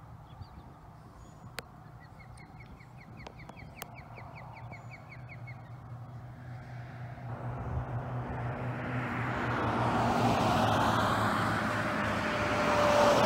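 A car on the road approaching and passing close, its tyre and engine noise building from faint to a loud rush over the second half. Earlier a bird gives one quick trill of rapid chirps.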